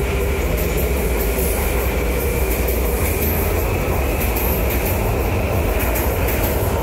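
Washington Metro subway train rolling along the track: a steady, loud rumble of wheels on rail with a faint high whine above it.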